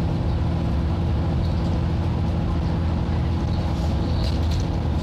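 Euro 5 Alexander Dennis Enviro400 double-decker bus with a Voith gearbox, heard from inside on the upper deck: its diesel engine drones hard and steady at an even pitch while the bus cruises, with road noise under it.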